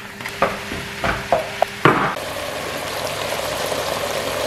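Beef mince browning in a large pot, with a steady sizzle from about two seconds in. Before that come a few sharp knocks and clicks of packaging and utensils against the pot.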